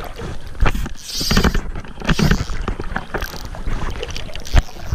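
Handling noise on a body-worn camera: clothing rubbing over the microphone and a run of knocks and bumps, with a sharp knock near the end the loudest, over water sloshing around a wading angler.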